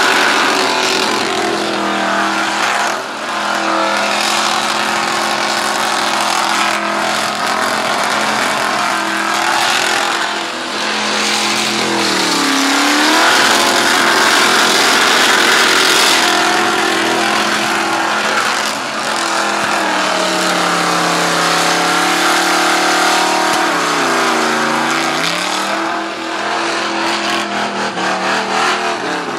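Ford BA Falcon ute doing a burnout: the engine is held at high revs against spinning rear tyres, with loud tyre noise. The revs dip and climb back twice, about halfway through and near the end.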